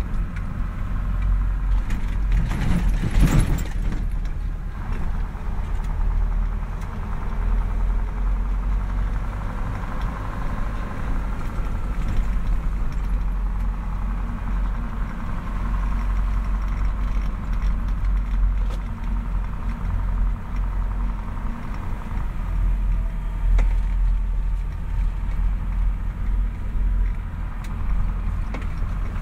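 KAMAZ 6x6 diesel truck driving along a rough dirt track, a steady low engine and running-gear rumble, with a loud clatter about three seconds in.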